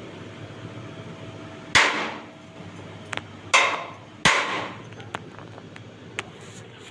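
A hammer striking welded steel: three hard, ringing blows about a second or two apart, with lighter taps between and after them.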